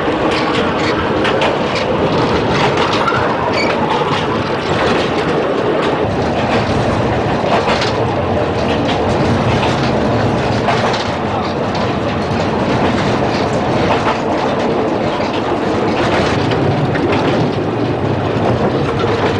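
Narrow-gauge train carriage rolling along light, overgrown track: a steady rumble and rattle of the car, with irregular clicks of the wheels over the rail joints.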